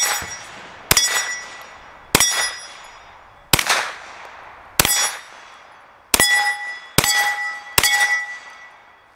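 Glock 19 9mm pistol fitted with a 16-inch barrel firing eight shots at roughly one a second, the last three a little quicker. Each shot is followed by the ring of a steel plate target being hit, dying away over about a second.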